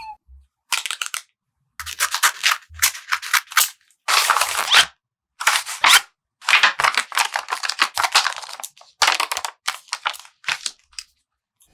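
Paper being handled: crisp rustling and crinkling in about a dozen short bursts, each cut off abruptly into dead silence.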